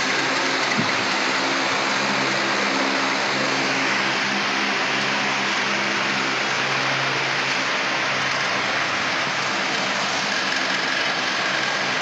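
Steady hum of a small electric motor running in a semi-automatic aluminum-cap vial crimping machine, even throughout with no crimping strokes.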